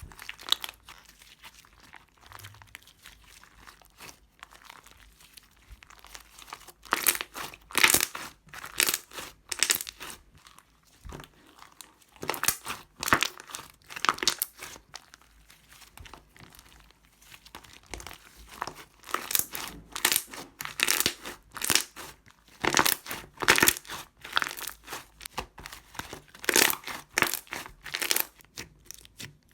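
Foam-ball slime being squeezed and pressed by hand, the foam beads giving a crunchy crackling in repeated bursts, with quieter squishing between them.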